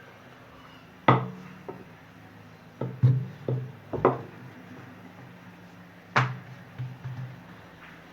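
Background music: sparse plucked notes at uneven intervals over a faint low steady tone.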